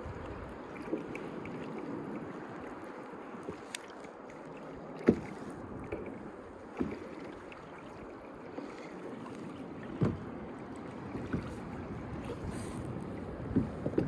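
Small sea waves lapping against a plastic sit-on-top kayak hull, with a few short sharp knocks, the loudest about five seconds in and another about ten seconds in.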